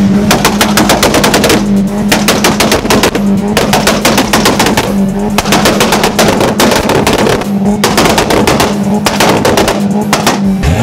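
Car engine held at steady revs against a rev limiter, its exhaust firing rapid, machine-gun-like bangs in runs of one to two seconds with brief breaks.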